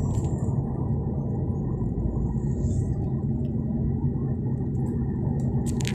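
Steady low rumble of a moving car heard from inside the cabin: engine and tyre noise on the road.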